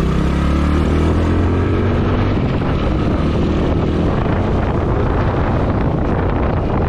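Hero Splendor motorcycle engine running as the bike rides off, its steady engine note giving way after about two seconds to wind rushing over the helmet camera's microphone.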